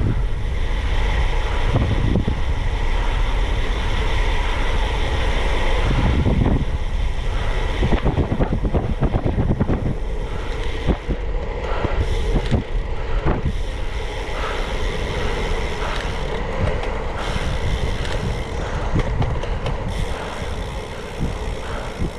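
Wind rushing and buffeting on a GoPro's microphone, with tyre and road noise, as a bicycle descends fast; it eases off gradually over the last few seconds.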